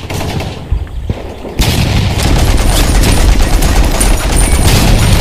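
Machine-gun fire sound effect: rapid shots running together, lighter at first, then a louder, denser burst from about one and a half seconds in.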